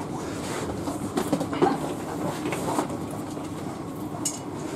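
Inside a passenger train coach: a steady hum, with a few short knocks and bumps as passengers move their bags through the aisle.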